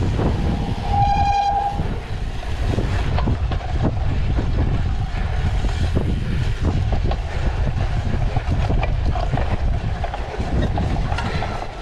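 Wind buffeting a handlebar-mounted action camera while a cyclocross bike rolls over tarmac and then bumpy grass, the bike rattling and knocking over the bumps. A short pitched beep sounds about a second in.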